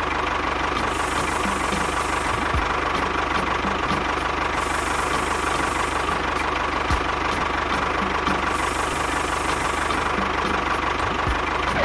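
Steady engine running noise for a miniature DIY tractor, with a constant whine and a light regular knocking.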